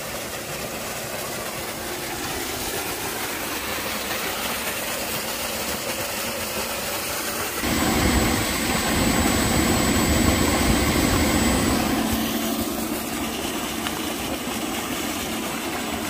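Tubewell water gushing in a steady rush from a steel outlet pipe, over the steady hum of the electric pump motor. For a few seconds in the middle the motor hum grows louder and a thin high whine joins it.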